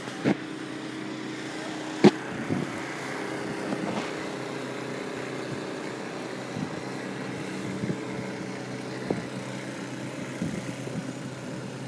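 A steady motor drone, with a few short sharp knocks; the loudest knock comes about two seconds in.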